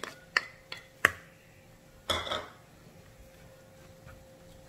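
A spoon knocking against the side of a small bowl, four quick sharp taps about three a second, to shake out the chopped garlic chives. A short scrape follows about two seconds in.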